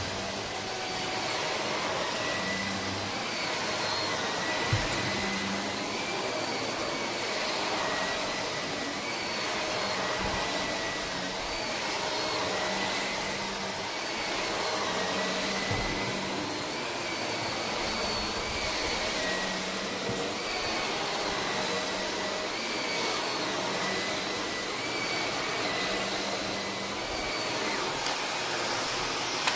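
Shark upright vacuum cleaner running on carpet. Its whine and loudness rise and fall slightly about every two seconds as it is pushed and pulled.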